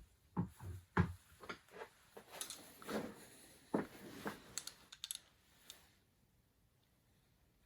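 Milling machine accessories handled and set down: an irregular series of light clicks and knocks, stopping about six seconds in.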